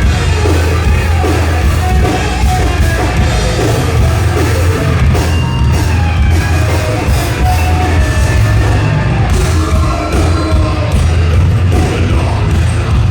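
Thrash metal band playing live, with distorted electric guitars, bass and a drum kit at a loud, steady level.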